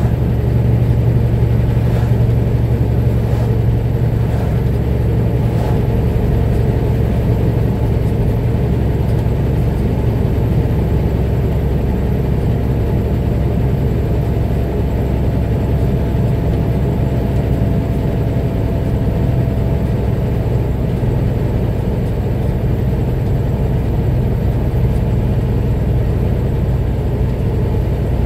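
A vehicle driving at a steady speed: a steady low engine and road rumble.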